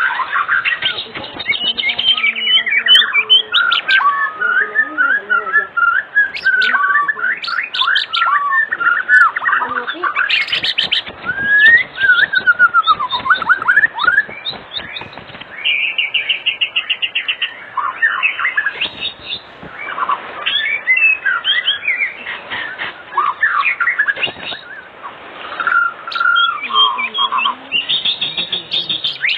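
White-rumped shama (murai batu) singing continuously in a long, varied song of sliding whistles, with bursts of rapid repeated trill notes around the middle and near the end. It is a lure song meant to get other shamas to sing.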